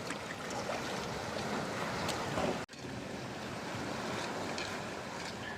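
Sea surf washing over a rocky shore, with strong wind buffeting the microphone. There is a steady rush, a few faint clicks, and a brief dropout in the sound about two and a half seconds in.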